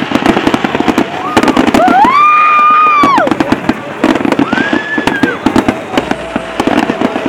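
New Year fireworks and firecrackers going off, a dense rapid crackle of pops. Two long held tones rise above it, one about two seconds in and a shorter, higher one near the middle.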